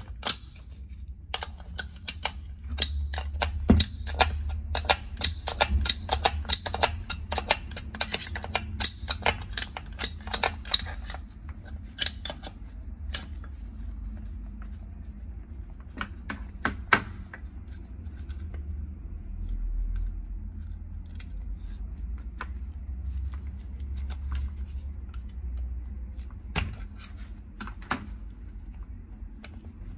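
Metal parts and hand tools clicking and clinking inside an opened ATV gearbox case as it is taken apart by hand. The clicks come thick and fast for about the first ten seconds, then thin out to scattered clicks.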